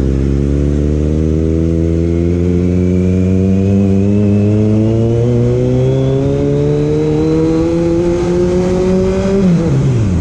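Kawasaki Z900's inline-four engine under acceleration, its pitch rising slowly and evenly for about nine seconds, then dropping sharply near the end as the throttle closes.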